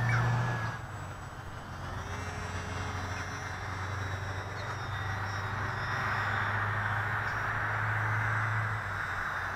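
Whine of the E-flite UMX Pitts's small brushless electric motor and propeller as the RC biplane flies around. The pitch drops as it passes right at the start and the sound swells again from about six seconds in, over a steady low hum.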